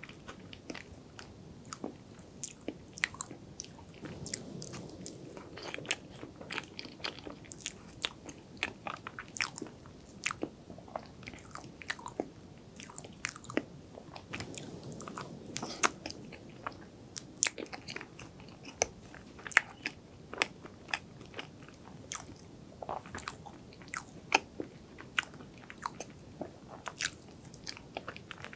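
Close-miked eating sounds of soft chocolate cream cake: wet chewing with frequent sharp mouth clicks and smacks, irregular throughout.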